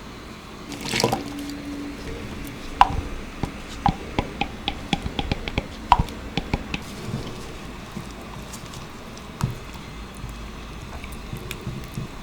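Kitchen prep sounds while making cookie dough or ganache: a short rush of liquid about a second in, then a quick, uneven run of small drips and clicks.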